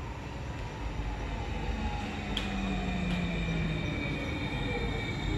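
Electric multiple unit pulling into the platform and slowing, its motor whine gliding slowly downward in pitch as it brakes. A single light click comes about two and a half seconds in.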